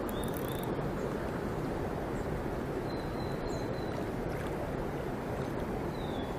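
Steady low rushing outdoor noise of a mountain stream and breeze on the microphone, with a few faint, short, high thin tones.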